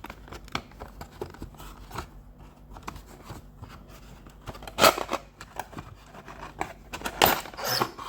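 Cardboard box and packaging being handled and opened by hand: small clicks and scrapes throughout, with louder rasping scrapes about five seconds in and again near the end.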